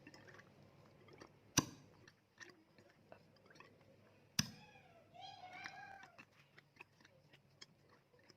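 Faint clicks and light knocks of compressor parts and tools being handled, with two sharper knocks about one and a half and four and a half seconds in. Just after the second knock comes a short squeal that rises and falls, like a meow.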